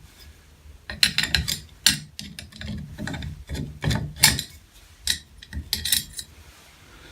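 Flathead screwdriver turning out the screw that holds a bathtub faucet handle, metal scraping and clicking in a run of short, irregular strokes starting about a second in.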